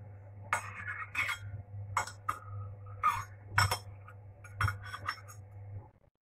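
Metal teaspoon clinking and scraping against a small ceramic bowl of lemon juice: about nine light, irregular clinks, over a steady low hum that stops near the end.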